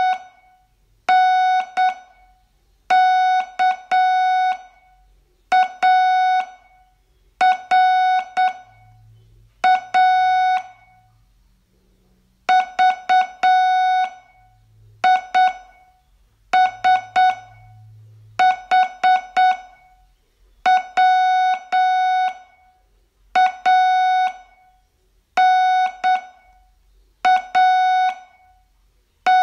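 Morse code sent as a keyed audio tone at one steady pitch, in groups of dots and dashes about every two seconds, with a longer pause about twelve seconds in. These are the letters of a slow-speed Morse receiving test, words to be copied by ear.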